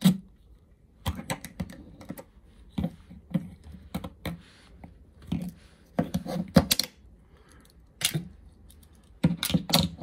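Blades and tools of a Swiss Army Champ pocket knife being snapped shut one after another: a string of sharp metal clicks at uneven intervals, some in quick runs of two or three.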